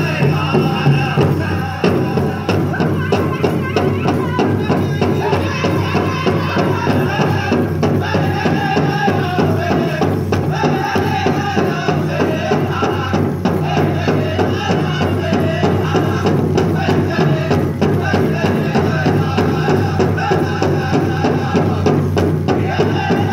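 Powwow drum group singing a chicken dance song over a steady beat on the big drum.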